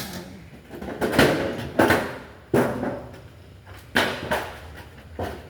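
Parts of a metal rack organizer being handled and knocking together, a string of sharp clanks with short ringing tails about a second apart.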